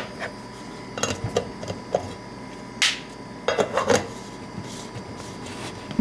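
A black plastic travel-mug lid and a red metal travel mug being handled on a countertop: scattered clicks and knocks, a short scraping rub about three seconds in, then a quick clatter of knocks.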